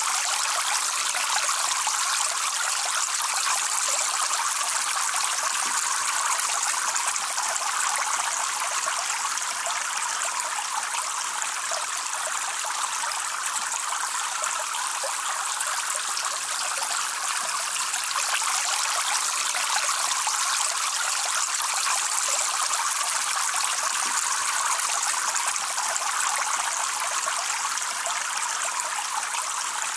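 Running water spilling steadily over a low ledge into a small pool: a continuous trickling splash with no pauses.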